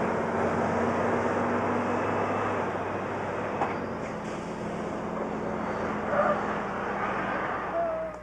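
Road vehicles driving: a steady rushing rumble with a low engine hum under it, and a brief high whistle-like tone near the end.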